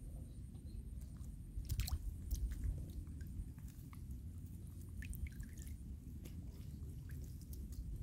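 Small clicks, rustles and wet squishes from a young monkey clambering in a waterside shrub and stepping in shallow water and mud, over a steady low rumble.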